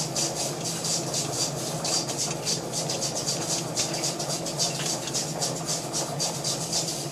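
Jewelry laser welding machine firing repeated laser pulses, each a short sharp tick, several a second, over the steady hum of the machine, as cracks on the inside of a ring are welded shut.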